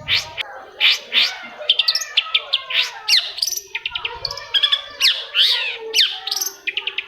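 Long-tailed shrike (cendet) singing a fast, varied chattering song: quick runs of sharp notes mixed with downward-sweeping calls, with hardly a pause.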